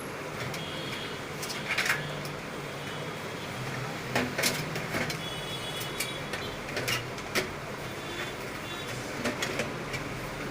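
Scattered light clicks and knocks of computer parts and power-supply cables being handled and fitted, over a steady low background hum.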